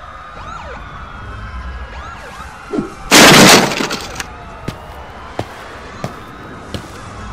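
Cartoon sound effects: several wailing sirens sweep up and down in pitch throughout. About three seconds in comes a loud crash with a shattering sound as a heavy weight lands, followed by a few sharp clicks about every 0.7 seconds.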